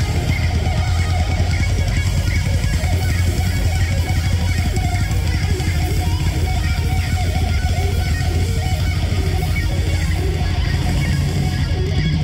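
Live symphonic metal band playing loud and steady: electric guitar and bass guitar over drums.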